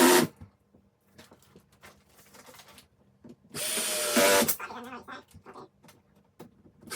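Cordless drill driving screws into flat-pack furniture in short runs of about a second each: one ends just as the sound begins, another comes about three and a half seconds in, and a third starts at the very end. Each run gets louder towards its close as the screw draws tight. Small clicks and knocks of handling come between the runs.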